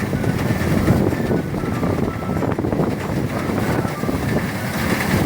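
Motorized rice thresher running steadily, a continuous low mechanical rumble.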